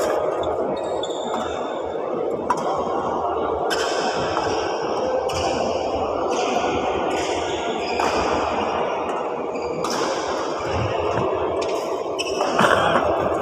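Badminton rally: rackets smacking the shuttlecock about once every one to one and a half seconds, each hit sharp and echoing in a large hall, over a steady background hum.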